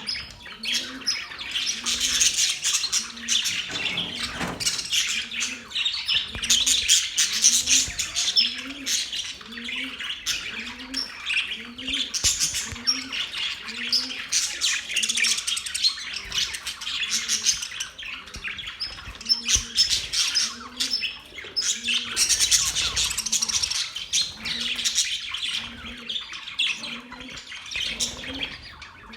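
Budgerigars chirping and chattering continuously, a dense warbling chorus with frequent sharp squawks. Underneath, a low call repeats about once a second.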